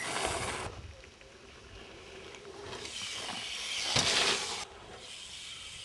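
BMX bike riding a dirt trail: a rushing hiss of tyres and wind, once briefly at the start and again swelling from about two and a half seconds in, with a sharp thud at about four seconds that fits a landing. The second rush cuts off suddenly.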